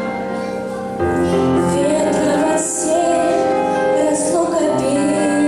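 A girl's solo voice singing a song over a recorded backing track. The backing fills out with a bass line about a second in.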